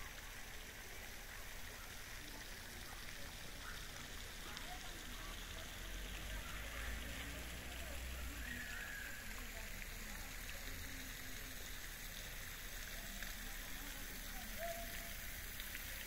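Steady, even hiss of outdoor background noise, with no distinct events.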